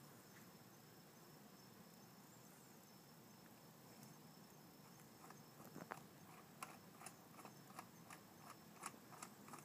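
Faint, irregular metallic clicks of a flat-blade screwdriver working the slow jet in a Keihin carburetor body, a few clicks a second. The first half is near silent and the clicking starts about halfway through.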